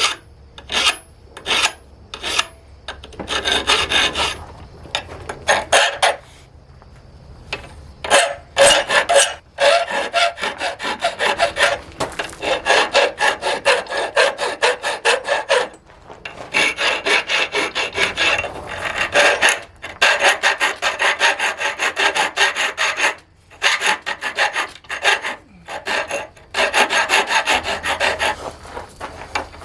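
Hand finishing of forged steel: a tool scraped over the metal in quick, evenly repeated strokes, in several runs separated by short pauses.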